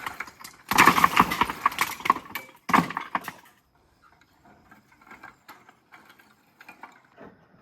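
Rubble from the demolished fireplace being thrown down: a loud clatter of stones and debris tumbling for about three seconds, followed by a few faint knocks.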